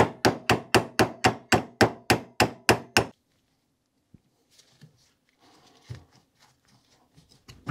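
Rapid hammer blows, about four a second, on the rusty, stuck retaining pin of a Skoda 105 front brake caliper held in a vise. The blows stop about three seconds in, followed by faint clinks and scraping as the loosened pin is worked with pliers.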